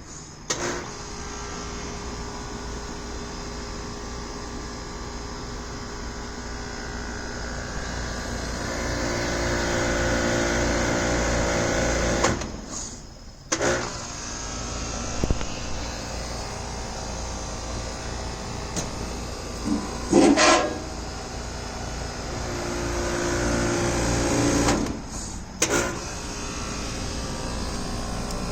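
Air conditioning unit running with a steady hum and several held tones that swell and fade over several seconds: the strange sound that prompted the recording. The sound drops out briefly twice, and a couple of short, loud bursts come about two-thirds of the way through.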